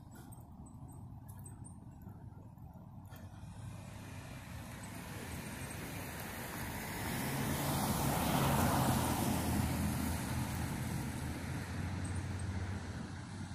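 A car driving past on the street: its engine and tyre noise build up, are loudest about eight or nine seconds in, then fade away.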